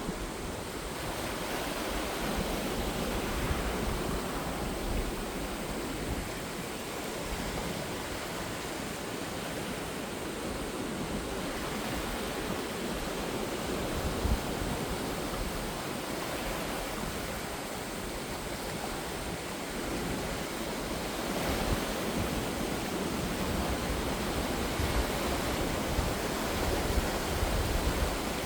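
Sea waves breaking and washing in, the surf swelling and easing every several seconds. Wind buffets the microphone with an uneven low rumble.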